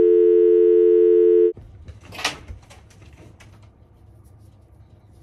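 A loud, steady two-tone telephone dial tone for about a second and a half, cutting off suddenly. Then one short sharp scrape and faint fabric-and-wire handling over a low hum from an air conditioner.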